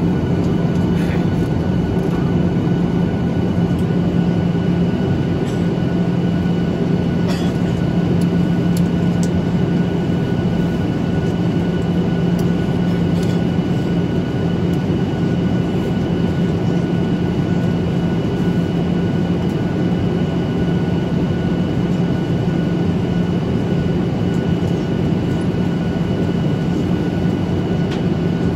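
Steady cabin noise inside a Boeing 737-800 in flight: the CFM56-7B jet engines and the airflow past the fuselage make an even, unchanging rush with a low drone and a faint high whine.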